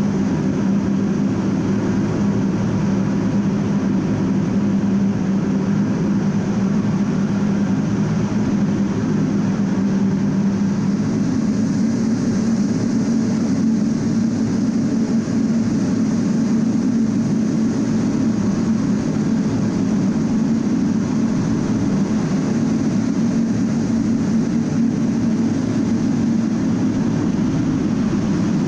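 Steady drone heard inside the cockpit of an A-10 Thunderbolt II in flight: its twin TF34 turbofan engines and the rush of air over the canopy, an unbroken low hum with no break.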